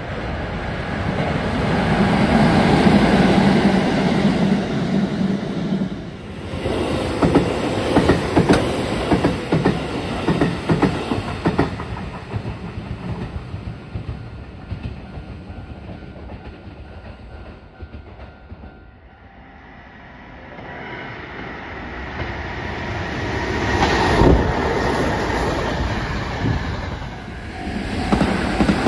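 Electric trains of the Sanyo Electric Railway's S Limited Express passing at speed, one after another. The wheels click rhythmically over the rail joints. The first pass swells and fades in the first few seconds, the second has a long run of clicks that dies away, and a third builds to a peak about three-quarters of the way through.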